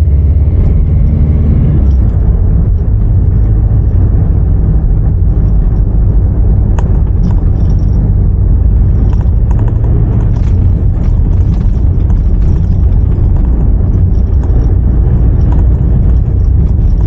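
Mitsubishi L200 pickup on the move: its 2.5-litre diesel engine running under a steady, loud low rumble of engine and road noise.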